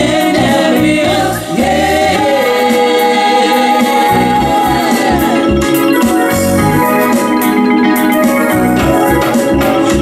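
Loud disco-pop music played live through a PA: female voices singing long held notes over an organ-like keyboard sound and bass.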